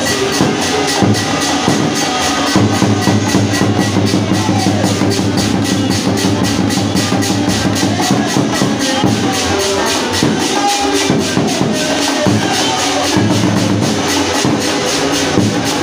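Live church praise music: a fast, even beat of hand percussion over sustained low notes.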